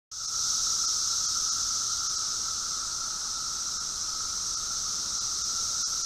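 Chorus of Brood X periodical cicadas: a steady high-pitched drone with a fainter, lower droning tone beneath it, starting suddenly at the very beginning.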